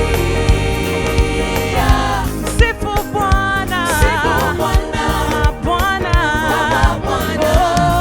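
Gospel praise band and choir singing with drums, a long held chord in the first two seconds, then voices with vibrato over a steady beat.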